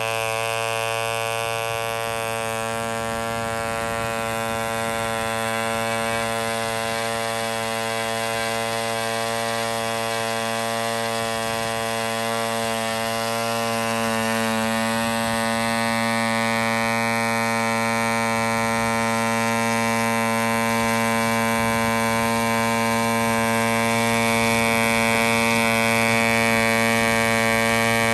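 Aurora K-650 6.5 cc single-cylinder two-stroke model diesel engine running steadily at an even speed, turning an 11 x 7 nylon propeller: a high, continuous buzz. The engine is new and on its second run.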